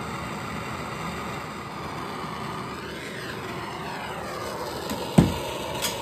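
Handheld gas torch burning with a steady rushing hiss as it heats a copper pipe fitting to sweat solder into the joint; the rush changes tone partway through as the torch is moved. A single sharp knock about five seconds in.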